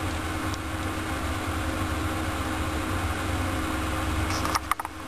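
Steady low mechanical hum with hiss, broken by a few sharp clicks near the end.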